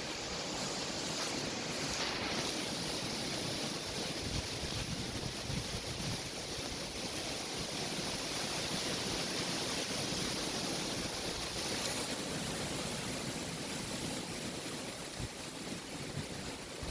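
Strong wind blowing in a steady rush, with uneven low rumbling from gusts buffeting the microphone.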